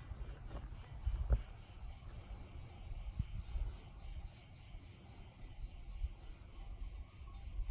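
Crickets chirping in a steady, even pulse from the surrounding grass. A few low thuds break in, about a second in and again at about three seconds.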